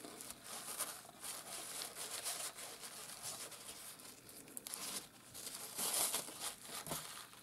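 Paper towel crinkling and rustling as it is pressed and dabbed onto freshly watercoloured paper to blot off the excess water. The rustles are soft and uneven.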